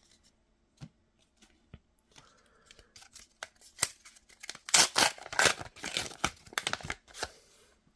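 A trading card pack's foil wrapper being torn open and crinkled. A few light clicks and rustles come first, then a loud run of tearing and crackling from about five to seven seconds in.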